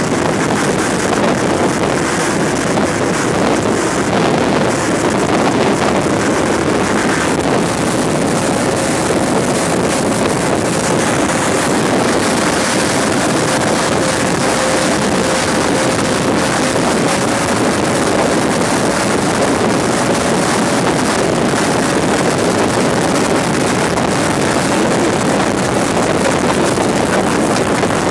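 Motorboat running at speed across open water: a steady mix of engine noise, rushing water and wind buffeting the microphone. A faint steady whine runs through the middle stretch.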